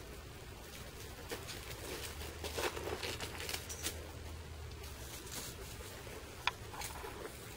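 Faint rustling and crinkling, busiest about two to four seconds in, with a few small sharp clicks, the sharpest near the end.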